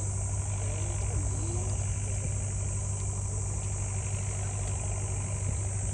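A steady low engine-like hum, with a constant high-pitched insect drone over it.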